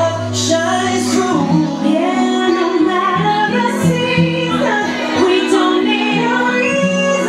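A song with a woman singing long held notes over steady instrumental backing.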